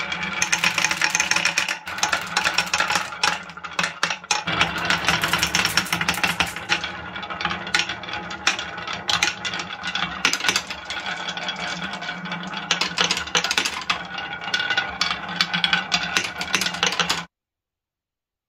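Many marbles rolling and clattering down wooden wavy-grooved marble-run tracks: a steady rolling rumble with dense clicks of balls knocking against each other and the wood. It stops suddenly about a second before the end.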